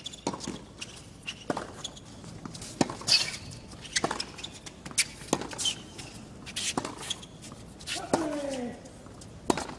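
Tennis rally: rackets striking the ball back and forth, with sharp pops about once a second and the ball bouncing on the hard court. A player gives a falling grunt on a stroke near the end.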